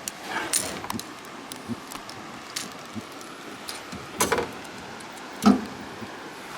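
Scattered knocks and clinks, irregularly spaced, with louder ones about half a second in, about four seconds in and about five and a half seconds in, over a steady background hiss.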